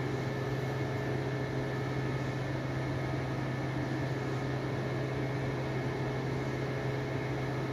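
Steady low mechanical hum with a faint even hiss, unchanging throughout, with no knocks or clicks.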